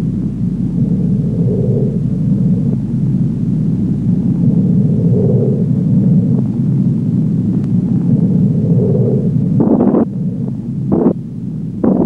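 Projection-booth machinery running with a steady low rumble that swells softly about every four seconds. Near the end it breaks into short, louder bursts of noise.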